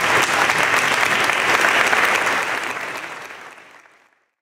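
A room of people applauding, a dense steady round of clapping that fades away in the last second or so.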